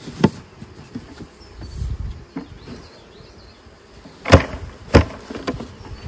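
Plastic bucket full of a honey bee swarm being grabbed and handled over a wooden hive box, giving sharp knocks just after the start and two louder ones about four and five seconds in, over the faint hum of the bees.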